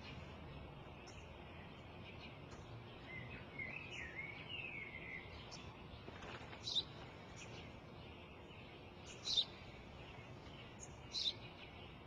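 Sparrow chirping: a short warbling phrase a few seconds in, then single sharp falling chirps, three of them loud, about two seconds apart, over a faint steady hiss.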